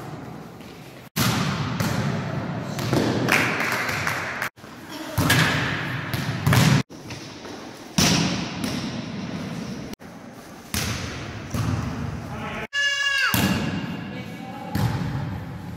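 Volleyball play in a large sports hall: repeated thuds of hands striking the ball and the ball hitting the wooden floor, with players' voices. The sound cuts off suddenly several times where short clips are spliced together.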